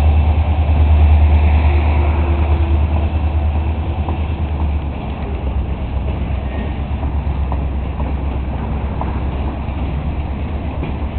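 Diesel switching locomotive's engine running with a deep, steady rumble. It is loudest at first and eases off about five seconds in, with a few faint clicks later.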